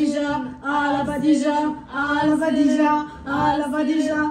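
Young women's voices chanting a made-up spell in a sing-song, the same short phrase repeated about four times with brief breaks between.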